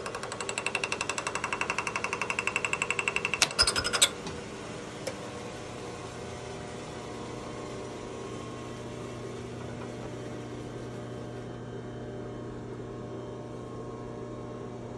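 Milling machine boring head cutting the inside radius of an aluminium frame: a rapid, even rhythmic chatter from the single-point tool, ending with a few sharp knocks about four seconds in. After that the rhythmic cutting stops and the machine runs on with a steady hum.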